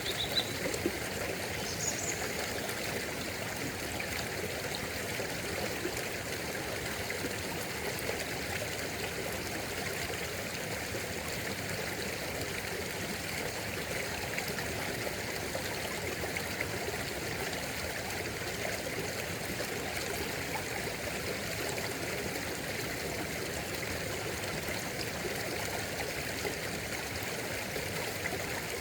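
Stream water flowing and trickling steadily, with a couple of brief high chirps about two seconds in.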